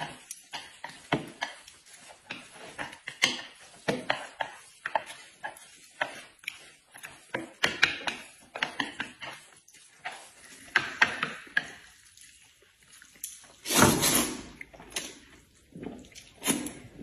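Noodles being eaten with chopsticks: many small clicks of chopsticks against plates and bowls, mixed with chewing. Late on comes a louder, longer noodle slurp, with shorter slurps near the end.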